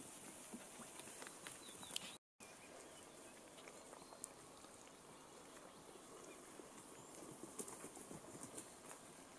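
Faint sounds of Finnsheep at a lakeshore, mostly small scattered clicks and taps as a sheep drinks at the water's edge. The sound cuts out completely for a moment about two seconds in.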